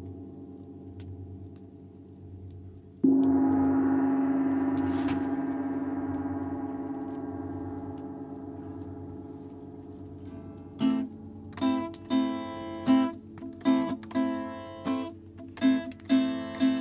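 Live instrumental music: a single loud struck note rings out about three seconds in and fades slowly over several seconds, gong-like. Near eleven seconds a strummed string instrument starts a rhythmic pattern on the same pitches, about two strokes a second.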